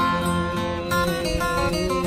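Background music with acoustic guitar playing in a pause between the song's sung lines.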